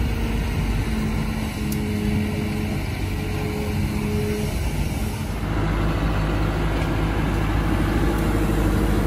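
Diesel engine of a Kobelco SK200 hydraulic excavator running under load while digging mud, with a steady droning tone over it. About five seconds in the sound turns heavier and deeper.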